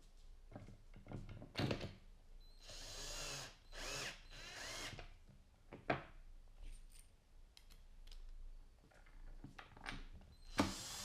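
A power drill-driver running in two short bursts, about a second each, typical of driving screws into plywood. Sharp knocks before and after come from parts being handled.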